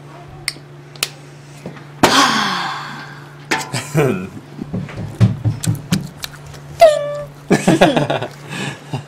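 People laughing and exclaiming in bursts, with no clear words. There is a sudden loud outburst about two seconds in and a short high call near seven seconds, all over a steady low electrical hum.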